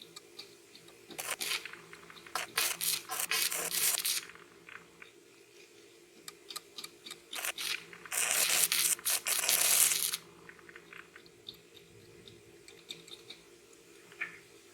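Stick-welding arc crackling and sputtering in two short runs, the first about a second in, broken up into sharp crackles, and a steadier sizzling run of about two seconds near the middle, with scattered faint crackles between. Under it runs a steady faint hum.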